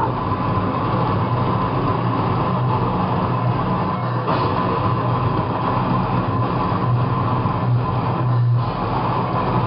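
Death metal band playing live at full volume: distorted electric guitars and bass blurring into a dense, steady wall of sound.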